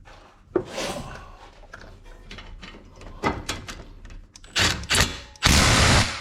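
Tools and metal parts knocking and clicking, then short bursts of an impact wrench, the last one longer and loudest near the end, tightening the brake caliper bolts.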